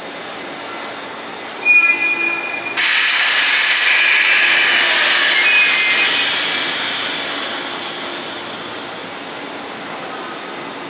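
Train noise with wheel squeal: a short high squeal about two seconds in, then a sudden loud rush of train sound with squealing wheels that fades away over the following several seconds.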